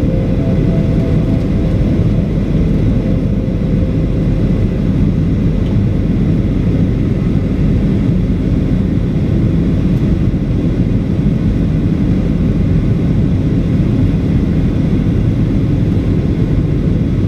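Steady roar of a Boeing 737-800 in flight, heard inside the cabin from a seat over the wing: the CFM56-7B engine and the airflow over the fuselage, deep and unchanging.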